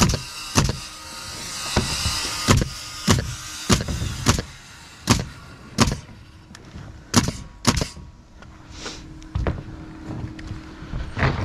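Nail gun driving nails into plywood roof sheathing: a quick run of sharp shots, about one or two a second, then a gap of a few seconds and a couple more near the end.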